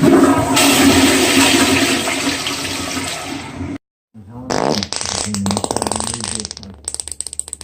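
A long, loud fart sound effect that cuts off suddenly after nearly four seconds, then after a short gap a second fart sound made of a rapid buzz of pulses.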